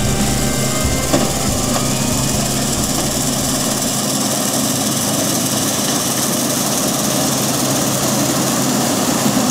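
New Holland CX820 combine harvester running steadily while working in standing cereal, a constant low engine hum under an even mechanical rush. Background music fades out in the first two seconds.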